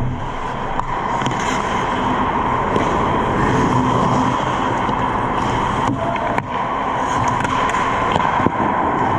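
Ice hockey play heard from the goal net: skate blades scraping the ice and sticks clacking over a steady rink hum, with a few sharp knocks about six seconds in and again near the end.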